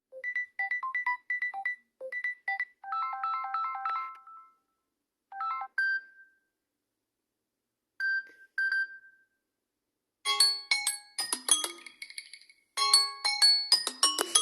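Samsung Galaxy Z Flip 3 5G stock ringtones played one after another: short melodies of quick, clear pitched notes separated by brief silences. About ten seconds in, a busier, faster and louder melody begins.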